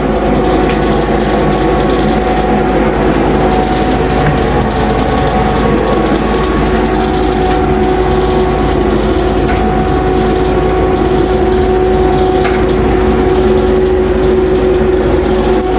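Electric power sander running steadily with an even whine, sanding the fiberglass Bondo patches on a shower floor smooth before reglazing.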